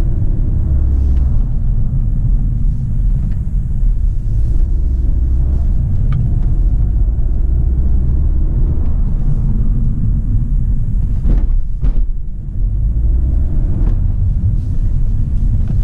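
Skoda Octavia RS 245 being driven, heard from inside the cabin: a steady low rumble of engine and road noise, with two short knocks about three-quarters of the way through.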